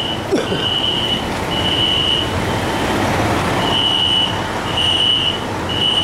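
Building fire alarm sounding a high-pitched beep in groups of three with a pause between groups, the standard temporal-three evacuation pattern, over a steady background rumble.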